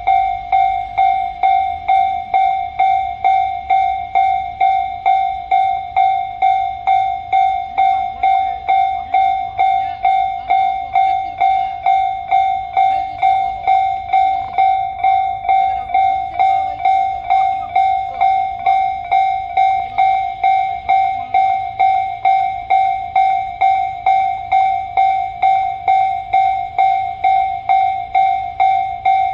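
Japanese railway level-crossing warning bell ringing steadily, an electronic ding repeating about twice a second, which signals that a train is coming and the crossing is closed.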